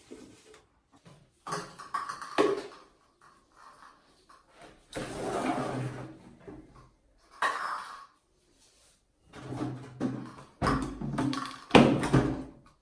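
A long-handled toilet brush scrubbing inside a ceramic toilet bowl and knocking against it, in short irregular bursts with pauses between, busiest near the end.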